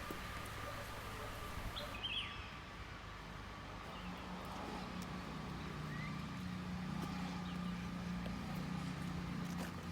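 Quiet outdoor ambience: a steady low hum, with a few brief, faint bird chirps, one about two seconds in and another near the middle.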